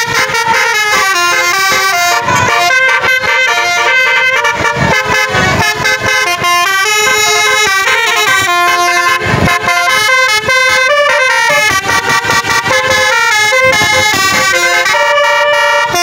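A bus's basuri telolet horn, a multi-tone horn set, playing a fast melody of many notes that step up and down without a break.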